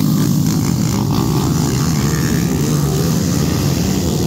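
Dirt-track racing motorcycles passing close by, several engines running hard at once with their notes overlapping.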